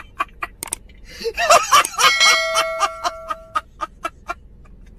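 A man laughing hard in short repeated bursts, about three or four a second. There is a louder stretch in the middle with a steady held tone under it for about a second and a half.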